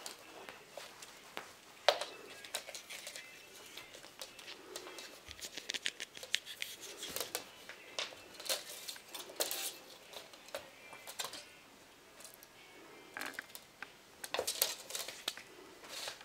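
Somali kittens scuffling and play-fighting on a quilted blanket and wooden floor: irregular scratches, clicks and rustles from paws and claws, coming in flurries.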